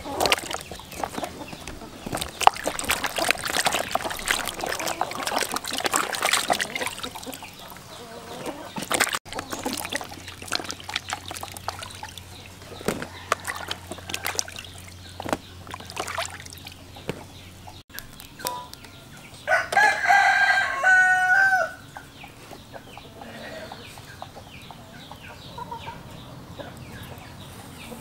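Water splashing and sloshing in a plastic basin as eggplants are washed by hand. About twenty seconds in, a rooster crows once; this is the loudest sound.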